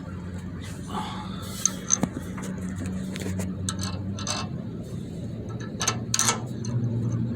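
Light metal clicks and scraping as a parking brake cable end is fed through its fitting and a lock nut is handled onto the threads, over a steady low hum.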